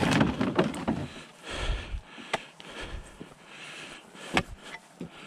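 Footsteps on lake ice: a burst of rustling and breath noise on the microphone at the start, then a few separate sharp crunches of boots on the ice.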